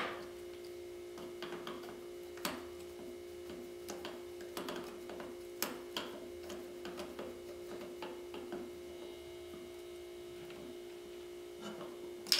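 Sparse small clicks and taps as a hex key turns the pistol grip's 4 mm screw into an HK416 .22 receiver, over a steady electrical hum.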